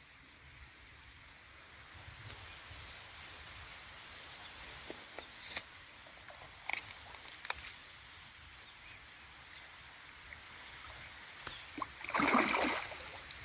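Hooked fish splashing at the water's surface as it is hand-lined to the bank: a few small splashes midway, then one louder splash about twelve seconds in as it is grabbed by hand from the shallows.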